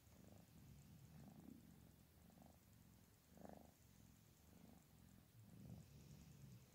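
Tabby kitten purring faintly and contentedly while being stroked, the purr swelling and fading about once a second, with the strongest swell about halfway through.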